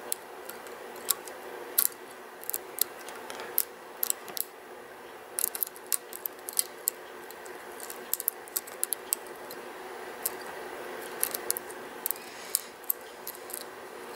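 Steel lock pick clicking and scraping against the pins of a Sargent Signature LFIC lock cylinder under tension: irregular light metallic ticks as the sidebar pins are probed one by one. A faint steady hum runs underneath.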